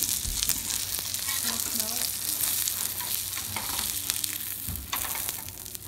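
Plant-based burger patty sizzling and crackling as it fries in oil in a nonstick pan. A metal spatula slides under the patty, adding a few scrapes and knocks against the pan.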